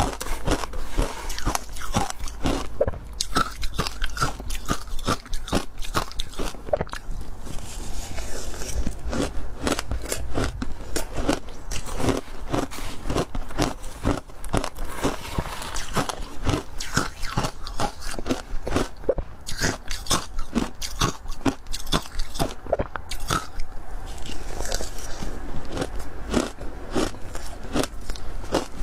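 Ice being bitten and chewed, a continuous run of sharp crunches and cracks several times a second.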